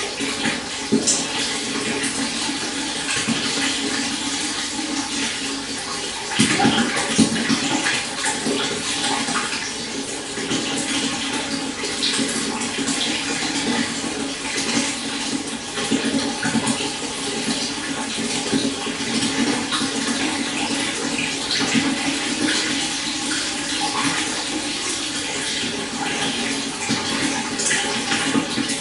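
Shallow stream water flowing and burbling steadily, with many small splashes and a louder surge about six seconds in.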